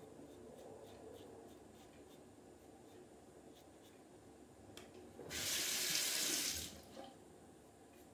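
Bathroom tap running for about a second and a half, water hissing into the sink as the safety razor is rinsed between strokes. Before it, faint razor strokes scrape on lathered stubble.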